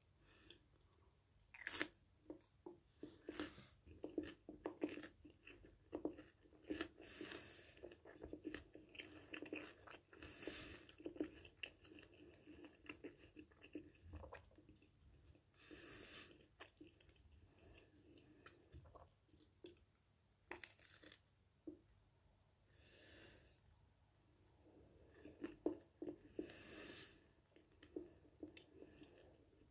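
A person chewing and crunching toasted bread topped with poultry sausage, close to the microphone: a run of soft wet clicks, with several louder crisp crunches scattered through it.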